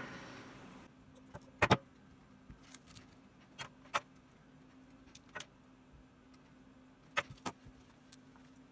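Scattered light clicks and taps of wires and small hand tools being handled over an open wah pedal, the sharpest near the two-second mark and a pair near the end, over a faint steady hum.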